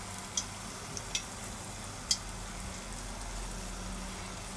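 Battered corn dog deep-frying in a pot of oil at about 170 °C: a steady sizzle with four sharp pops, the loudest about two seconds in.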